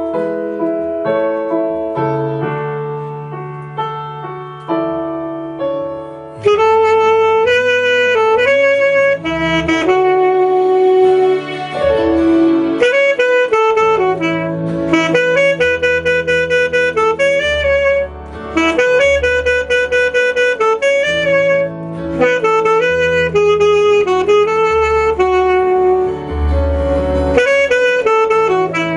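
Piano chords alone, then about six seconds in an alto saxophone comes in playing the song's melody in sustained, gliding notes over the piano and bass accompaniment.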